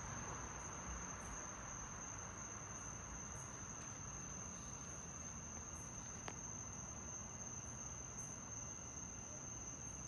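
Crickets trilling at night: one steady high-pitched tone over faint hiss. A single faint click comes about six seconds in.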